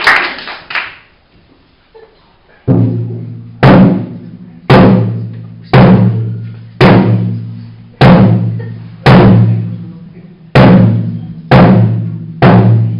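Applause fading out, then a large drum beaten slowly with a stick, about one hit a second, each stroke ringing on at a low pitch and dying away before the next.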